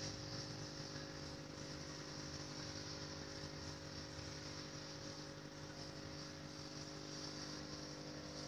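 Aquarium equipment running: a faint, steady electrical hum of several held tones with a constant hiss above it.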